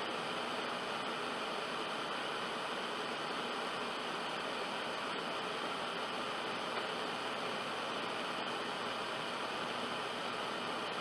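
Steady static hiss from a VHS-style tape noise effect, even and unchanging, with no tones or voice.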